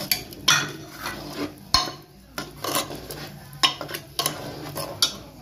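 Steel ladle stirring a thin curry with whole eggplants in a pressure cooker, clinking and scraping against the pot about eight times at irregular intervals.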